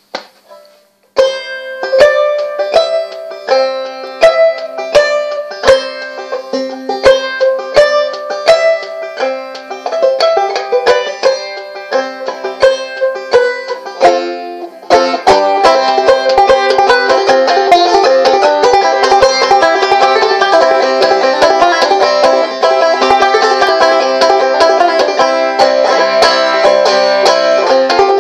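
Gold Tone White Lady Plus banjo played clawhammer style in C tuning. After a brief quiet start, it plays spare, ringing plucked notes, and about halfway through it turns louder and fuller, with notes in a steady, dense stream.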